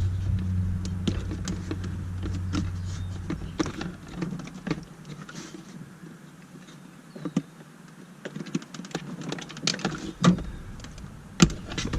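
Small plastic clicks and rattles of wiring-harness connectors being pried and worked loose from a car's body control module, with a few sharper clicks near the end. A low steady hum fades out over the first few seconds.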